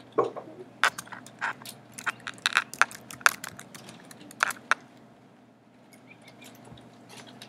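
Typing on a computer keyboard: a quick, irregular run of sharp key clicks for about five seconds, then a few fainter clicks near the end.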